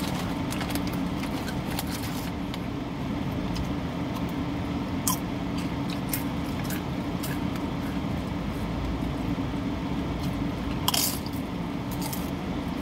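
Tortilla chips being chewed, with scattered crunches and clicks and a louder crackle near the end, over a steady hum inside a car's cabin.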